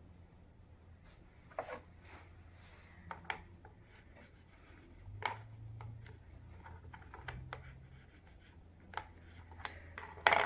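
Copper foil tape being pressed and rubbed down onto glass by hand, with soft rubbing and scratching and a few light clicks and taps.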